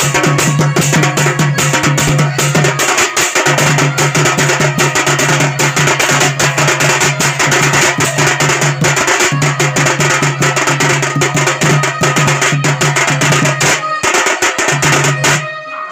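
Double-headed barrel drum played by hand in a fast, dense folk dance rhythm over a steady low drone. The drone drops out briefly a few times, and all the music stops abruptly near the end.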